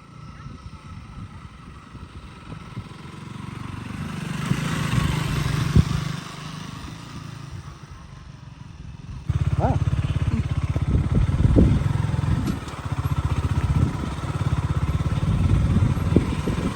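KTM Duke 200's single-cylinder engine running as the motorcycle is ridden. It swells about four seconds in, falls back, then becomes suddenly much louder about nine seconds in.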